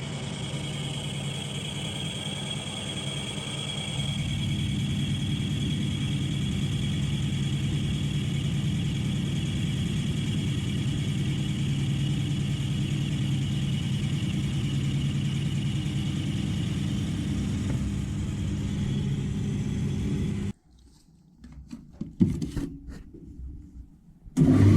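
Metal lathe running steadily while machining a pulley to fit a motor shaft: a steady hum with a high whine. It cuts off abruptly about twenty seconds in, followed by a few short knocks.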